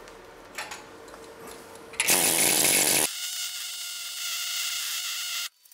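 Pneumatic air hammer peening a stick-weld build-up on a steel block held in a vise, a rapid mechanical hammering. It starts about two seconds in, loudest for about a second, then runs on at a lower, steadier level before stopping abruptly near the end.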